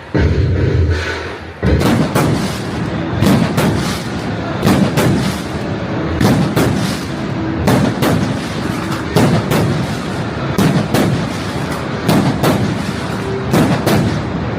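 Fireworks going off in a rapid string of loud bangs, several a second, starting about a second and a half in, with music playing underneath.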